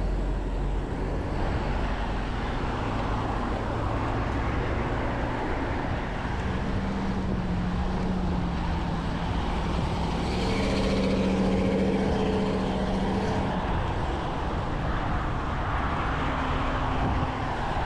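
Steady road traffic noise heard from a bicycle riding along the road. A passing motor vehicle's low engine hum rises out of it about a third of the way in, peaks around two-thirds through and fades.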